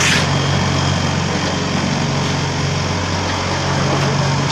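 Concrete vibrator table running: a steady electric motor hum with a buzzing rattle of the steel table top, shaking the concrete-filled paver moulds to settle and compact the wet mix.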